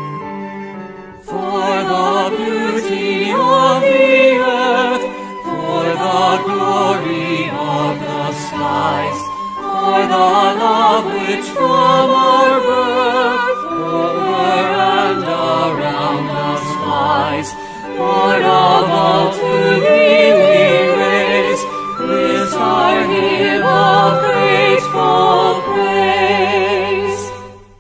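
A choir singing a hymn with vibrato, entering about a second in, with brief breaks between phrases.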